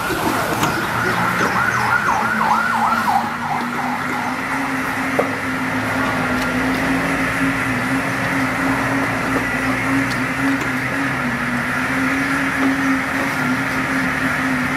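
Street traffic: a fast warbling siren for the first few seconds, fading out, then a steady low hum that runs on under general street noise.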